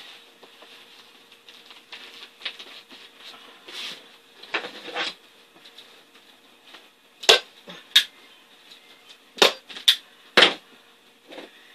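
Manual staple gun firing staples through a vinyl seat cover: about five sharp snaps in the second half, spaced roughly half a second to a second and a half apart, after some soft rustling as the cover is handled.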